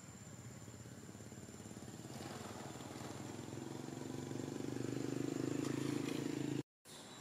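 Engine of a passing motor vehicle running and growing steadily louder for several seconds, then cutting off suddenly near the end.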